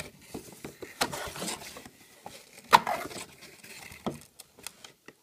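Cardboard box being opened and handled: flaps rustling and scraping, with a few sharp knocks and taps, the loudest a little under three seconds in.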